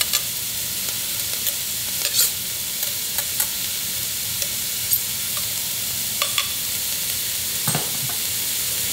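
Onion, green pepper and garlic sizzling steadily in oil for a sofrito, with scattered sharp clicks and scrapes of a utensil stirring in the pot.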